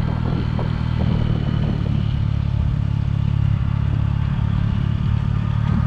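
Motorcycle engine running at a steady pitch while riding downhill.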